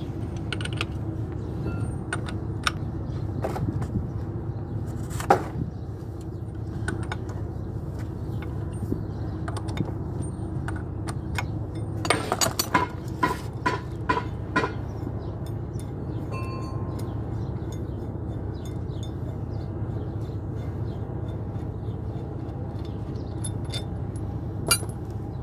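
Metal hand tools and bolts clinking and tapping against a Caterpillar C15 engine's cast flywheel housing as the rear crankshaft seal installer plate is unbolted and taken off, with a quick run of ringing clinks about twelve seconds in. A steady low hum runs underneath.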